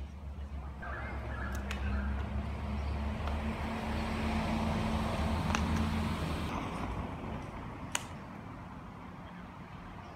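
A car passing on the street: a low engine and tyre rumble that builds to a peak about halfway through, then fades. A single sharp click comes near the end.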